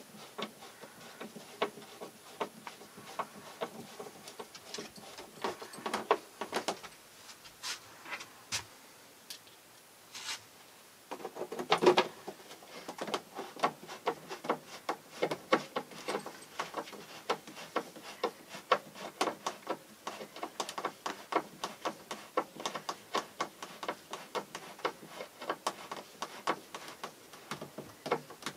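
Hand screwdriver driving screws into wooden trim: a long run of small, quick clicks and ticks, with a short lull around ten seconds in and a louder knock around twelve seconds.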